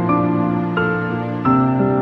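Background instrumental music: held notes and chords that change every second or so.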